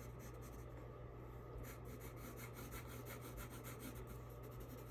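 Brown colored pencil scratching faintly on paper in quick, repeated short strokes, shading fur texture.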